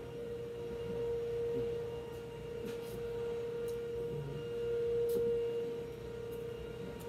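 A steady single-pitched hum holding one even pitch, with a few faint clicks.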